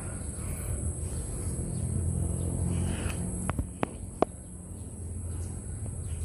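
Forest ambience: a steady high-pitched insect drone over a low rumble, with a few sharp clicks about three and a half to four seconds in.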